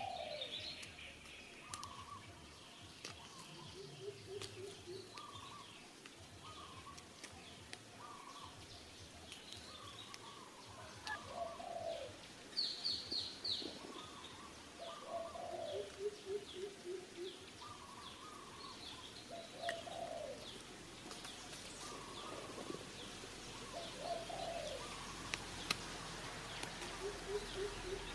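Birds calling: short, low phrases repeat every few seconds, with higher chirps in between and a quick run of high notes about twelve seconds in.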